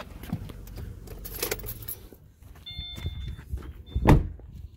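2016 Subaru Forester's 2.5-litre boxer four idling with a low rumble, then switched off about two seconds in, with keys jangling and a few short electronic chime tones. The driver's door then shuts with one loud thump near the end.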